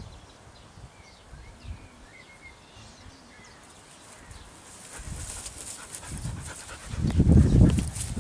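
A puppy and a Belgian Shepherd playing close to the microphone: panting and scuffling that builds through the second half and is loudest near the end. Faint bird chirps can be heard in the quieter first half.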